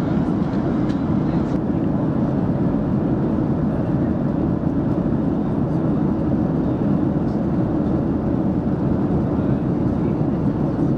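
Cabin noise of a Ryanair Boeing 737-800 in cruise: a steady, deep rush of engine and airflow noise that does not change. A few faint ticks come in the first two seconds.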